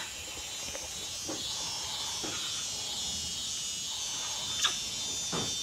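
Steady high-pitched buzzing of a forest insect chorus, with one short sharp click or chirp about three-quarters of the way through.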